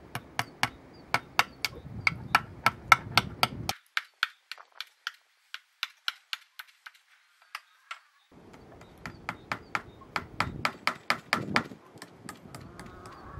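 Rapid light hammer taps, about four a second, driving nails through a whole trout into a wooden board.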